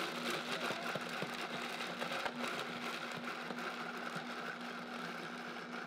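Vitamix blender motor running steadily, chopping whole hazelnuts for a hazelnut spread, with many small clicks of nut pieces hitting the jar as a tamper pushes them down into the blade.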